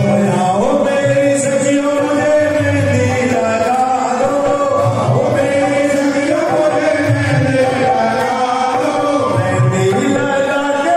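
Hindu devotional singing (a bhajan) with instrumental accompaniment: a sung melody held over a steady low beat.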